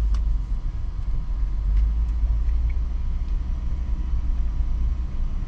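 Steady low rumble of a vehicle driving slowly, engine and road noise.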